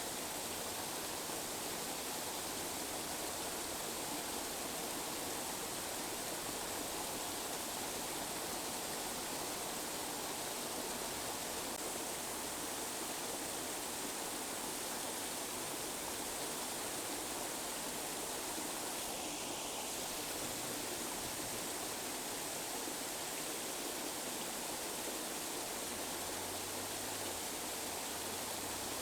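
Steady tinnitus masking noise: an even, unchanging hiss with no pitch or rhythm.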